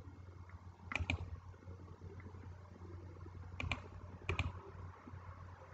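Computer mouse clicking: a few short, sharp clicks, mostly in pairs, about a second in and twice more past the middle, over a faint steady low hum.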